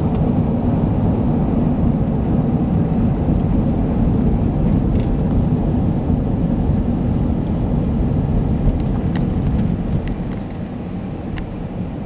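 Car road and engine noise heard from inside the cabin while driving: a steady low rumble that eases a little about ten seconds in.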